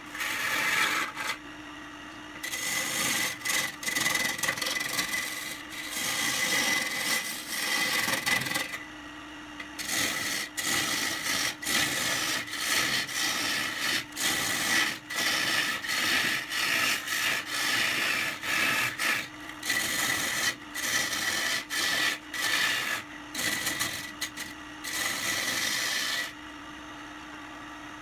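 Wood lathe running while a turning tool cuts into the spinning wood in repeated scraping strokes with short pauses between them. A faint steady machine tone carries on through the pauses.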